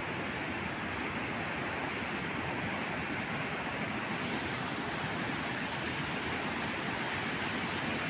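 Floodwater of a swollen river rushing steadily, a constant roar of water without breaks.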